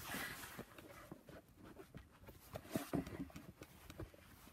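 Faint handling noise: light taps, knocks and rubbing, with a short cluster of louder knocks about three seconds in.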